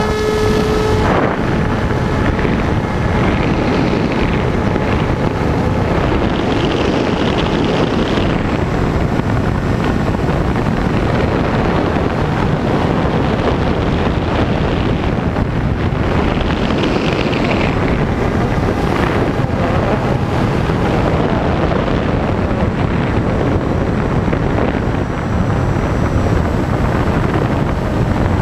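Steady, loud wind rushing over the microphone of a camera riding on a Raptor 2 m FPV glider in flight. A whining tone heard at the start stops about a second in.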